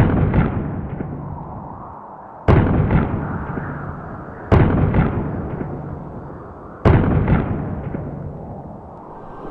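Four loud booms, each hitting suddenly and dying away over about two seconds, about two to two and a half seconds apart.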